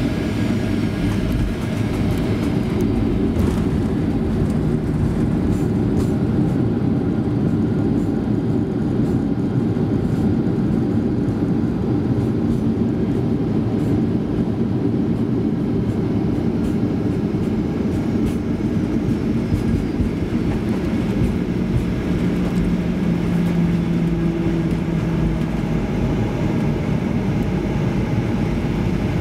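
Jet airliner touching down and rolling out along the runway, heard from inside the passenger cabin: a loud, steady rumble of engines and wheels on the runway.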